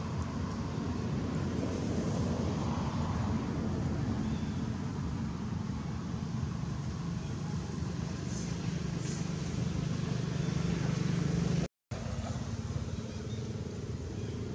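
Steady low rumble like a motor vehicle engine running, with a brief total dropout near the end.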